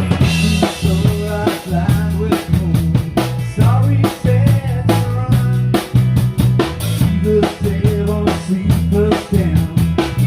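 Live rock band playing an instrumental passage: drum kit keeping a steady beat, with bass guitar and other amplified instruments.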